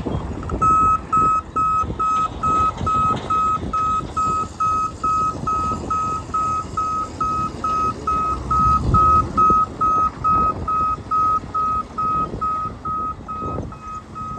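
Truck backup alarm beeping steadily at about two beeps a second, over the low rumble of a running engine.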